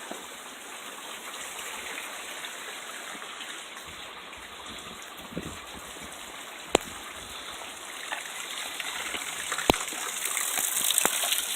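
Storm rain falling with water running, a steady hiss that grows louder in the last few seconds. Two sharp ticks stand out, about halfway through and again near the end.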